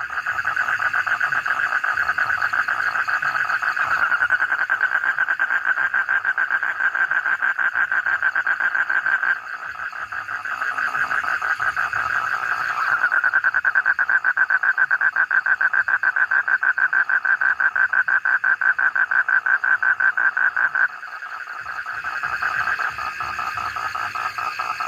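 A toad calling in long, fast, buzzing trills pitched steadily in the upper-middle range. The trill dips and softens briefly about nine seconds in and again about twenty-one seconds in, then carries on.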